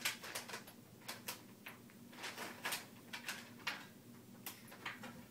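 Kittens playing around a cardboard box with foil balls: irregular light rustles, crinkles and taps, a dozen or so scattered short sounds.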